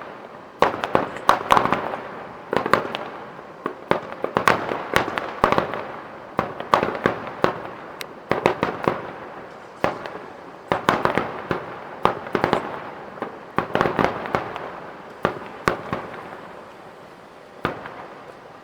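Fireworks display: dense rapid bangs and cracks in quick clusters every second or two, thinning out near the end with one last bang.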